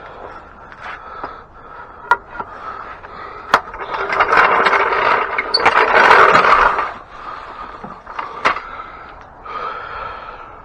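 Wheeled shop equipment being pushed across the floor, its casters scraping and squealing, loudest through the middle, with a few sharp knocks in between.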